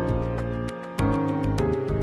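Background music: sustained chords over a bass line with a steady light beat, the chord changing about halfway through.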